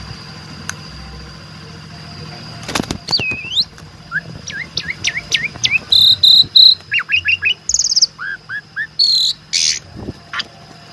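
Asian pied starling (jalak suren) singing a varied song: rising and falling whistles, quick runs of repeated chirps and loud harsh buzzy phrases, starting about three seconds in. A sharp click sounds near the end.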